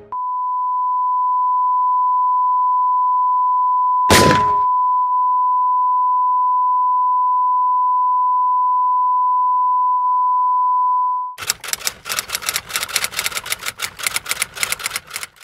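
A steady, high, pure beep tone, the ear-ringing effect after a pistol shot, cut by one sharp gunshot about four seconds in. The tone fades out after about eleven seconds and gives way to rapid typewriter clacking as text types onto the screen.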